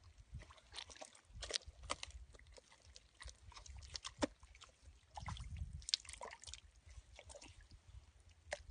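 Wet squelches and small irregular smacks of a hand working in soft mud and shallow water, picking small fish off the mud one at a time, with a duller, deeper squelch about five seconds in.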